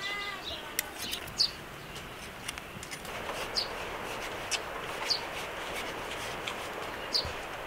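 A small bird chirps in short, high, falling single notes every second or two. From about three seconds in, a knife cuts through a watermelon rind with a steady rasping noise.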